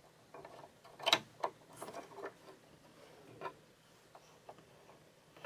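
Replacement bobbin case being fitted into a sewing machine's hook race: a run of light plastic-on-metal clicks and taps, the loudest about a second in, then a few fainter ticks as it settles.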